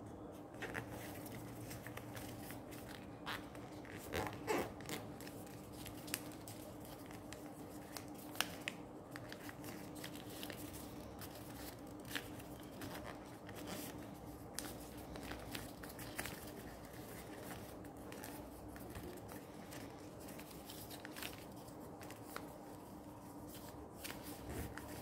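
Paper being folded and creased by hand on a plastic-covered table: scattered rustles, crinkles and soft taps, over a faint steady low hum.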